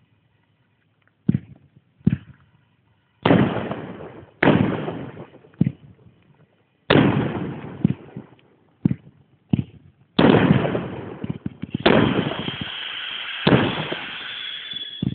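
Fireworks display: aerial shells bursting in a string of about ten loud bangs, a second or so apart, each with a long fading tail. A steady high whistle runs through the last few seconds.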